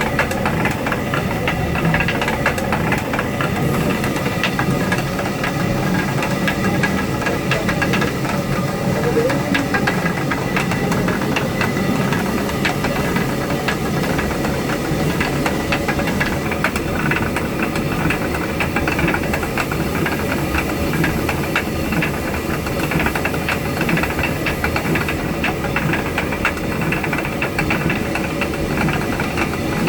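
Traditional water mill running: the stone mill grinding rice gives a steady, dense rattle full of rapid clicks, over the hiss of rushing water.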